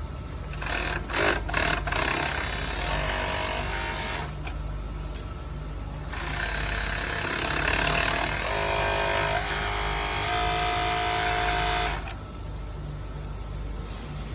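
Direct-drive five-thread overlock sewing machine running in two bursts of stitching, one from about half a second in to about four seconds and a longer one from about six to twelve seconds, over a steady low hum.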